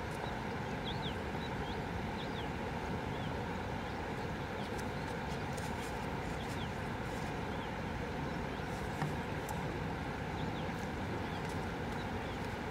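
Steady outdoor background rush with short, high bird chirps recurring about once a second.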